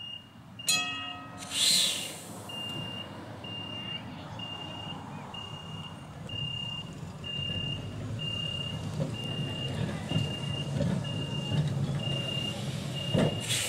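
Tram-crossing warning signal beeping steadily at a high pitch, about once a second, while Melbourne tram 663 pulls away across the crossing with a low rumble that grows louder. A single ringing note and then a short hiss come in the first two seconds.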